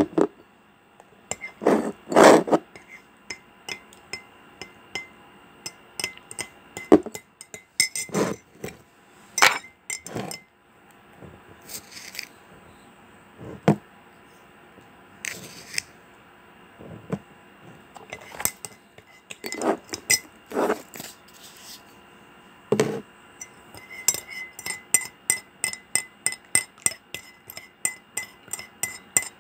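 A metal teaspoon clinking and knocking against a glass jar and a ceramic mug as coffee and sugar are spooned in, in scattered single clinks and taps. Near the end it turns to quick, regular clinking of the spoon against the mug as the drink is stirred, about three clinks a second.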